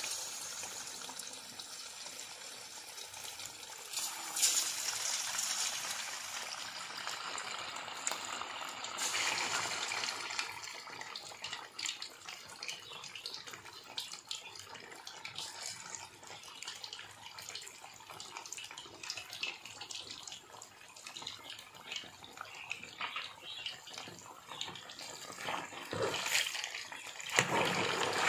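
Coated chicken wings deep-frying in hot oil in an aluminium kadai, sizzling and crackling steadily. The sizzle swells about 4 and 9 seconds in, and again near the end when a slotted spoon stirs the pieces.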